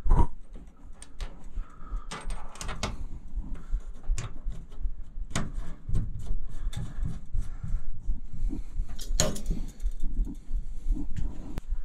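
Scattered small metal clicks and knocks as a brass TXV and copper tubing are handled and fitted against the coil cabinet, with a low rumble underneath. The sharpest knocks come at the very start and about nine seconds in.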